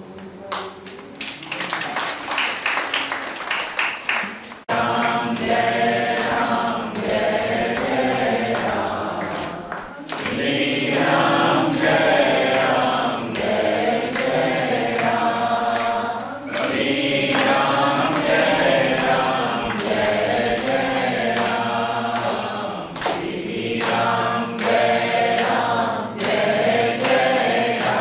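A group of people singing a devotional Hindu bhajan together. The full group comes in about five seconds in and sings in phrases, with short breaks between lines.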